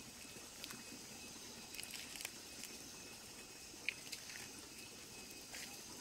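Evening insect chorus: faint, steady high-pitched trilling, with scattered short sharp chirps every second or so.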